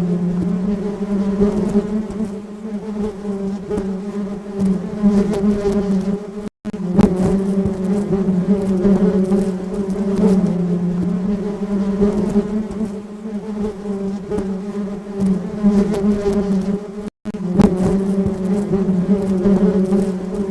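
Honeybees buzzing: a steady, slightly wavering drone, broken by two brief silent gaps, about six seconds in and about three seconds before the end.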